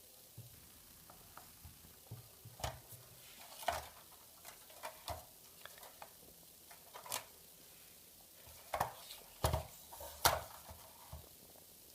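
Irregular light clicks and knocks of a tin toy rifle being handled, about fifteen scattered taps with the loudest few close together near the end, and no firing rattle.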